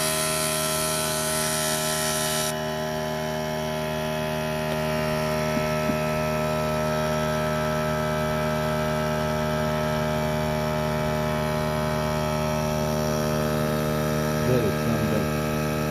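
Steady electric machine hum, with a hiss over it that cuts off about two and a half seconds in.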